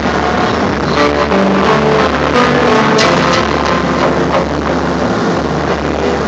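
Stage-show soundtrack played loud: a steady low rumbling drone under shifting sustained tones, punctuated by a few sharp hits about one, three and four seconds in.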